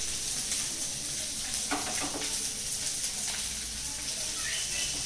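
Semolina (rava)-coated fish pieces shallow-frying in oil in a frying pan, a steady sizzle. A few short scrapes and knocks of a wooden spatula come about two seconds in and again a little later.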